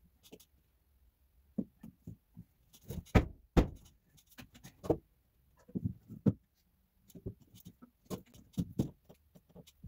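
White PVC drain pipe and elbow fittings knocking and clunking as they are handled and pushed together: a series of irregular knocks, the loudest about three seconds in.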